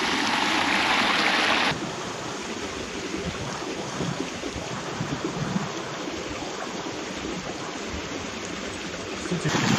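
Steady rushing of running water, like a stream. It is louder for the first couple of seconds, drops off suddenly, and comes back up sharply near the end.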